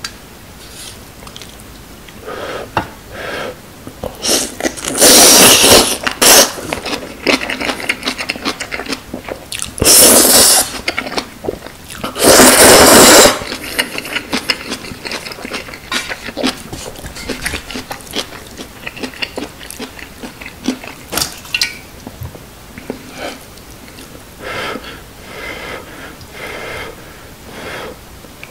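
Close-miked slurping and chewing of instant ramen noodles: three long, loud slurps about five, ten and twelve and a half seconds in, with wet chewing and lip smacks between them.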